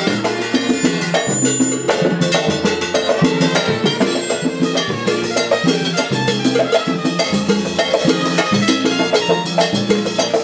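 Live salsa band playing, with keyboard piano and trumpet over Latin percussion.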